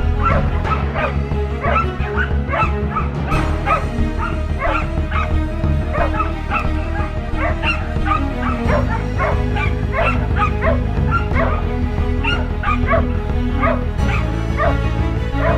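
Music with a steady bass line, with short dog yips and barks coming several times a second over it.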